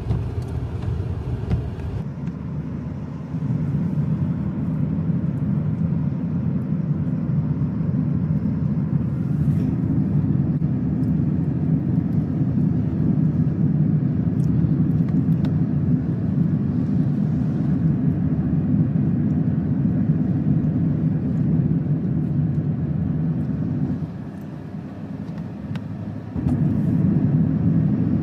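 Car interior noise heard from inside the cabin while driving: a steady low rumble of engine and road. It gets louder about three seconds in and dips briefly for a couple of seconds near the end.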